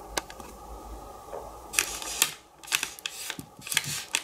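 Plastic ice-cream wrapper crinkling as a hand presses and shifts it: a single click early on, then a run of sharp crackles and clicks from about two seconds in.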